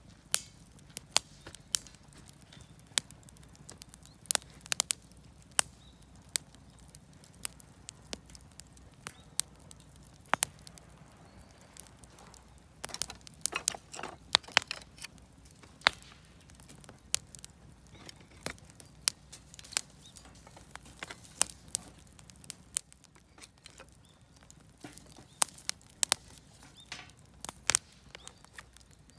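Campfire of scrap lumber and firewood crackling, with irregular sharp pops and snaps, a flurry of them about halfway through, over a faint low hiss of the burning.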